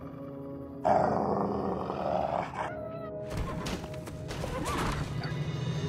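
A wolf growls and snarls about a second in, over tense orchestral music; about three seconds in come a run of heavy bangs and thuds as horses break from their stalls, and a horse briefly whinnies near the end.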